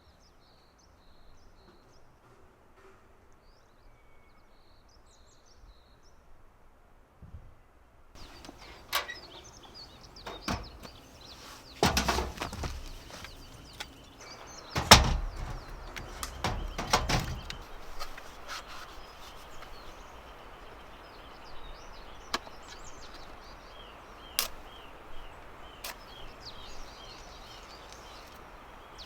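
Outdoor ambience with faint bird chirps, then a series of irregular knocks and clunks, the loudest about halfway through, with single sharp clicks later on.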